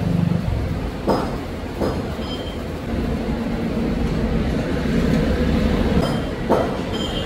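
Short knocks of steel pipe pieces set down and handled on a steel table, three of them: about a second in, near two seconds, and past six seconds, over a steady low background rumble.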